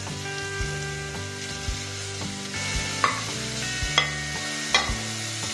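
Chopped tomatoes scraped off a plate with a wooden spoon into a pressure cooker of hot oil and onions, sizzling, with several light knocks of the spoon against the plate and pot.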